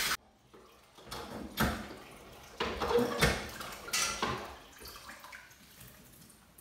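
Dishes being washed by hand in a kitchen sink: a few clinks and clatters of pots and dishes over splashing water, tapering off near the end.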